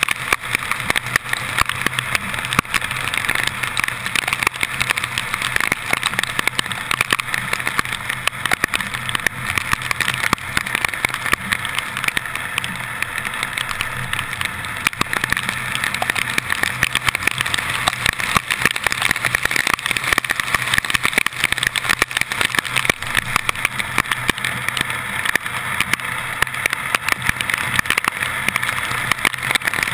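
Car driving on wet, flooded streets in heavy rain, heard from a camera mounted on its hood: a steady low engine hum under a dense hiss of tyre spray, wind and rain, with a constant crackle of raindrops striking the camera.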